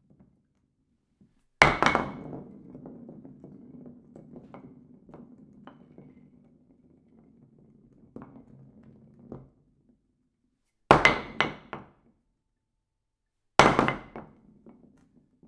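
Bowling alley sounds: a loud crash, then a low rumble with scattered knocks that fades away, followed later by two more sharp clattering crashes of ball and pins.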